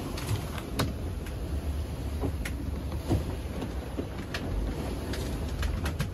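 Sailboat under way in 17–18 knots of wind, heard from inside the cabin: a steady low rush of wind and sea against the hull, with scattered clicks and knocks from the boat working in the waves.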